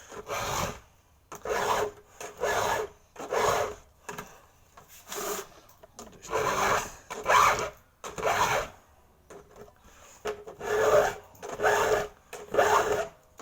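A saw chain being hand-filed with a 2-in-1 chainsaw sharpener, its 7/32-inch round file and flat raker file drawn across each tooth together. The rasping strokes come about one a second, in runs of three or four with short pauses between runs.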